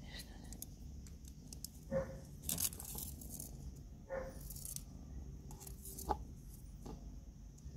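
Close handling noise of fingers working at a cord caught around a kitten's neck: rustling and scraping with a few short clicks and tearing-like bursts.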